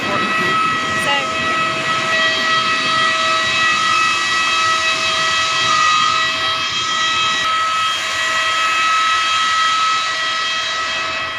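Jet airliner's turbine whine: a loud steady rushing hiss with a high, unchanging whine over it.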